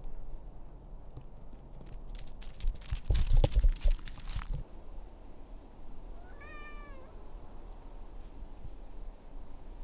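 A domestic cat meows once, a short call about six and a half seconds in. Before it, about three seconds in, a loud burst of crunching and knocking from footsteps on gravel.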